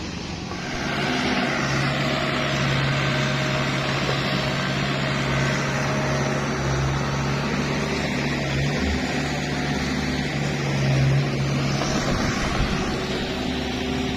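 Kubota excavator's diesel engine running steadily under load while it digs, with a drone that swells about a second in.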